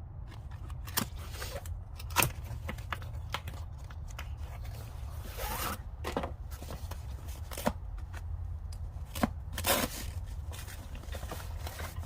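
Steel combination wrenches handled and shifted in their pouch: scattered sharp metal clicks and clinks with a stretch of scraping about halfway through, over a steady low hum.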